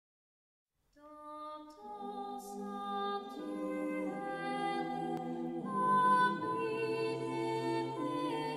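Slow background music of long held chords, changing every second or so, starting about a second in.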